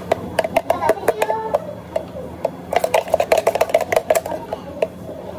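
Blender jar of thick blended smoothie being poured out into a plastic cup: irregular clicks, knocks and light clatter as the jar is tipped and tapped, thickest about three to four seconds in. A steady low hum runs underneath.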